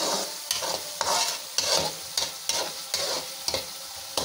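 Slotted spatula stirring and scraping onion-tomato masala around a steel kadai, the strokes about twice a second, over the steady sizzle of the masala frying in oil.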